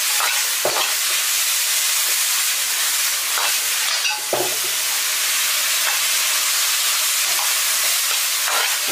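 Minced pork and diced long beans sizzling in a wok over high heat while being stir-fried. A steady hiss of frying, with a few knocks and scrapes from the metal ladle against the pan.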